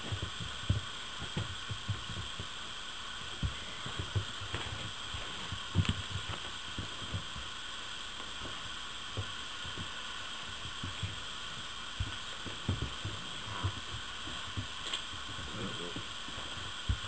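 Puppies scuffling in wood shavings and tugging at a toy: irregular soft thumps and a few sharper knocks over a steady hiss.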